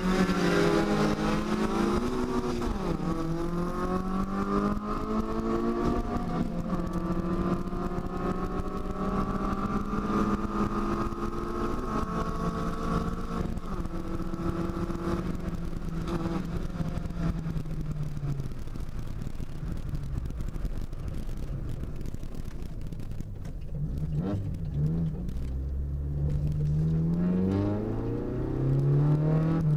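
Chevrolet Corsa Classic's four-cylinder engine heard from inside the cabin, pulling hard at high revs with a gear change a couple of seconds in. About halfway through the revs fall away and it runs lower, then it revs up briefly a few times near the end.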